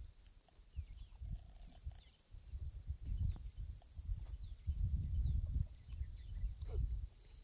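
Steady high-pitched drone of an insect chorus, with intermittent low rumbling on the microphone.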